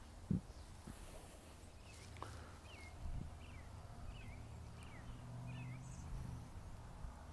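Faint outdoor background with a steady low rumble, a small bird chirping about six short high notes in the middle, and a single soft knock just after the start.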